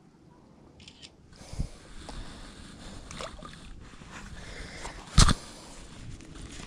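Rustling and light knocks of gear being handled on an inflatable paddle board as a phone is put away and a fishing rod is picked up, with one sharp, loud knock about five seconds in.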